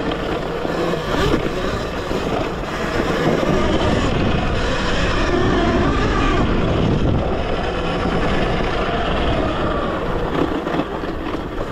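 A modified Talaria Sting electric dirt bike being ridden off-road. Its drive whine rises and falls with speed over a steady rush of noise.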